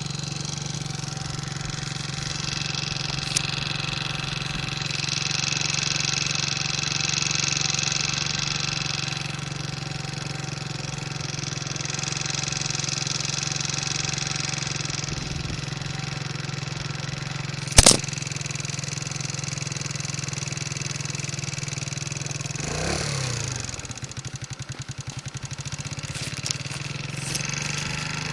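Vehicle running with a steady low hum while high-pitched brake squeal swells and fades twice. A single sharp click, the loudest sound, comes about two-thirds of the way through.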